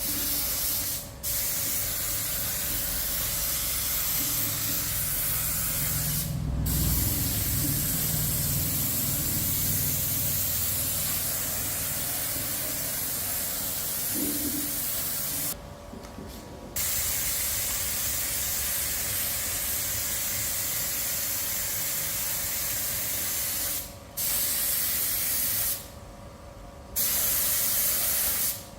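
Spray gun hissing in long bursts, cutting off briefly about six times, with a faint steady hum underneath.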